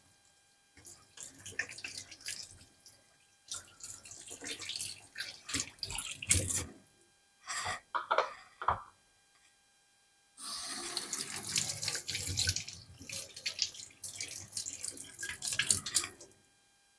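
Kitchen tap water running and splashing into a stainless steel sink as hands wash a green pepper under the stream. It comes in uneven bursts at first, with a brief squeak about eight seconds in, then runs steadily from about ten seconds in until it stops just before the end.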